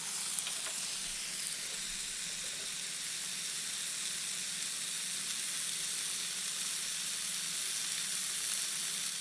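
Steak sizzling: a steady, even hiss.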